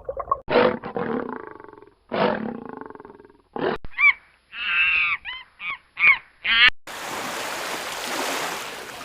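A large animal roars twice, each roar loud at first and then fading. A quick run of about six short, high, pitched calls follows, rising and falling. Near the end the calls give way to a steady rushing noise, like water or surf.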